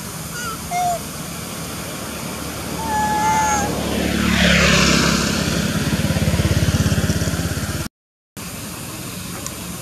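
A few short, clear squeaky coos from an infant long-tailed macaque in the first few seconds. Then a motor vehicle passes close by: its engine swells loudly from about four seconds in and runs with a rapid low pulsing before the sound cuts off abruptly just before the end.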